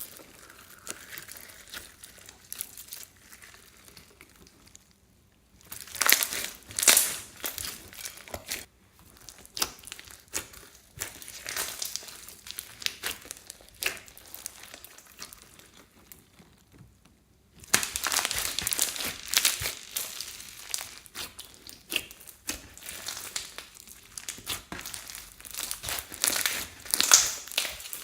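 Hands squeezing and kneading floam slime full of foam beads, giving crackly, crunching pops in bursts, with short pauses between handfuls.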